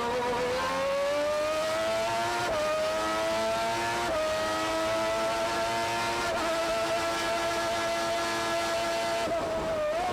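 Honda V12 of a 1992 McLaren MP4/6B Formula One car heard onboard at full throttle. Its pitch climbs, with brief dips at upshifts about two and a half, four and six seconds in. It then holds steady near top revs and eases off near the end.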